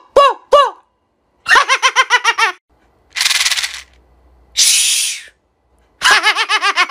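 Mouth sound-effects: a few short pitched pops, then a quick stuttering run made with the voice. A Mintia mint case is then shaken twice, its mints rattling in two short bursts, and the voice copies it with another quick stuttering run near the end.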